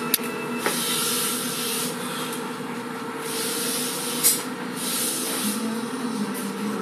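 Hand-stitching leather: thread drawn through the shoe upper in repeated hissing pulls of a second or two, with a few small clicks of the awl and needle.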